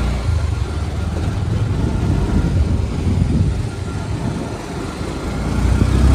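Steady low rumble of a road vehicle on the move: engine and road noise while driving.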